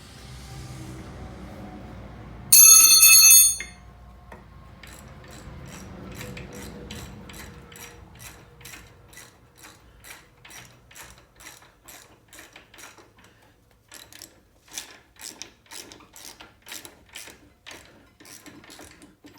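A loud metallic ring lasting about a second, then a socket ratchet clicking in short bunches of strokes, about two clicks a second, as the brake caliper hardware is worked loose.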